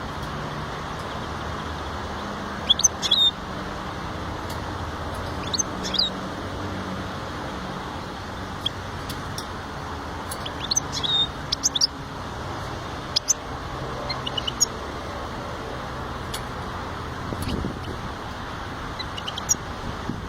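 A small finch giving short, scattered bursts of high chirps and brief trills, in about six separate groups. A steady low background noise runs underneath.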